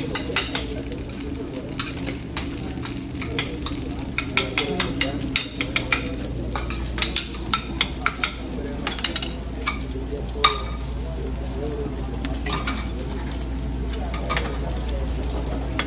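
Sizzling of eggs and hash browns frying on a flat-top griddle and in small skillets, broken by repeated sharp clinks and scrapes of a metal utensil against a skillet as scrambled eggs are stirred and scraped out onto plates.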